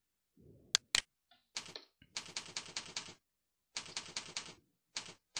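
Typing on a computer keyboard in several short runs of rapid keystrokes, after two sharp single clicks about a second in.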